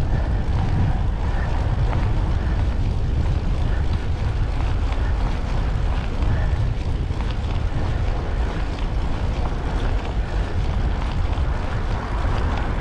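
Wind buffeting the microphone of a camera on a moving road bike: a steady, unbroken rumble.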